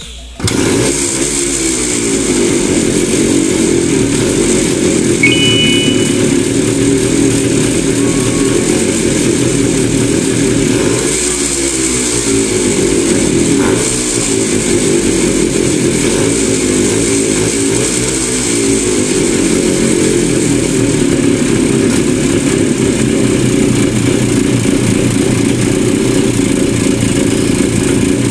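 Montesa Impala Comando's two-stroke single-cylinder engine running, its revs rising and falling several times as the throttle is blipped.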